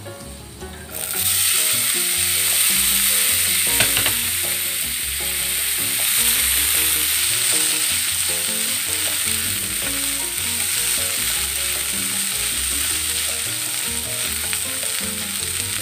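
Boiled mung beans poured into hot garlic oil in a frying pan, starting a loud sizzle about a second in that carries on steadily while they are stirred with a spatula.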